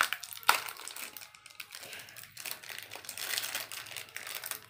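A crinkly plastic wrapper being crumpled and pulled open by hand: dense, irregular crackling, with one sharp click about half a second in.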